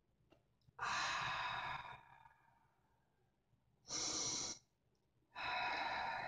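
A woman's deep breaths through the mouth: three audible breaths, a long one about a second in, then two shorter ones near the end.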